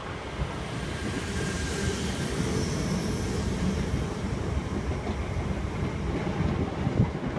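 Electric multiple-unit train running at the station platform: a steady rumble of wheels and running gear with a faint high whine in the middle.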